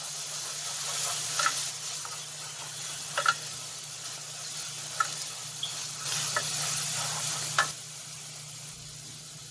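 Onions and ginger-garlic paste sizzling in hot oil in a pot while being stirred, a spoon striking the pot every second or two. The sizzle eases after the last stroke near the end.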